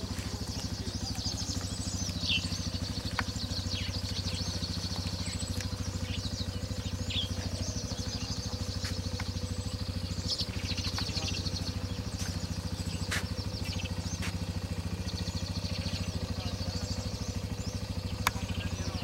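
A small engine idling steadily, with a fine even pulse, while birds chirp now and then and a few sharp clicks or knocks sound.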